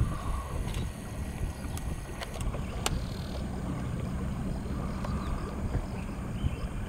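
Steady low rumble of a boat on the river, with a few faint sharp clicks.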